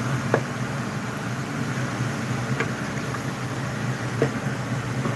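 Wooden spoon stirring broccoli in a stainless steel stockpot, knocking lightly against the pot a few times, over a steady low hum from a kitchen appliance fan.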